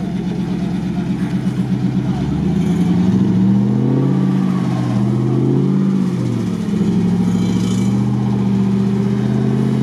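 GAZ-66 truck's engine pulling the truck slowly over rough off-road ground. The revs rise about two and a half seconds in, hold for a few seconds, then drop back to a steady lower speed.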